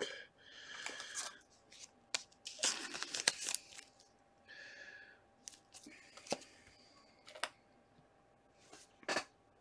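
Trading cards and plastic card holders being handled: short soft rustling swishes of plastic sliding, with several sharp clicks scattered among them.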